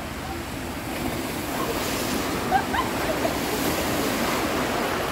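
Water rushing and splashing down the run-out lanes of a multi-lane mat racer water slide as a rider slides in on a mat. The rush swells about two seconds in.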